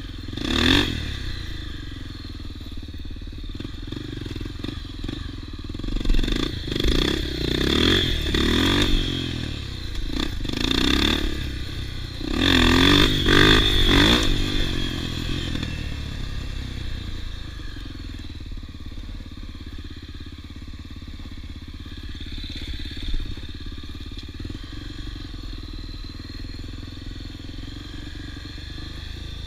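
Off-road motorcycle engines running, with repeated bursts of revving in the first half, loudest at about 12 to 14 seconds, over a steady engine rumble that settles in the second half.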